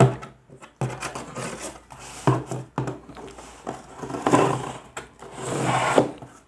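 Scissor blade scraping and slitting the packing tape along the seam of a cardboard shipping box, with hands rubbing and pressing the cardboard. It is a run of irregular rasping strokes and knocks, the longest near the end.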